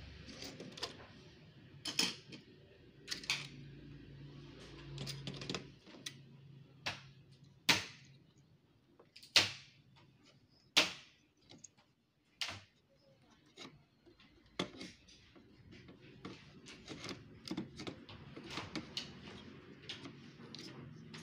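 Irregular sharp clicks and taps of hard plastic parts being handled and pushed into place in an inkjet printer's print carriage during a printhead swap, with a few louder snaps near the middle.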